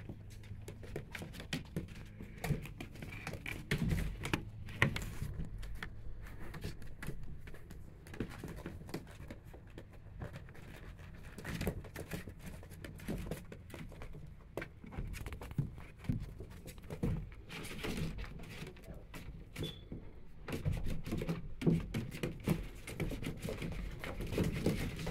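Three-week-old Goldador puppies scrambling around a plastic paddling pool: a steady scatter of scrabbling claws, rustling blankets and soft thumps.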